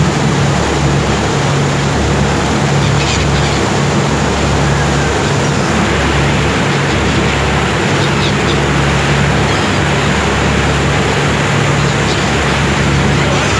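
Boat engine running steadily under the rush of the propeller wash and wind, with a few short gull calls now and then.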